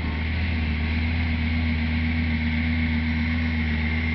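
2004 Lamborghini Gallardo's V10 engine idling steadily.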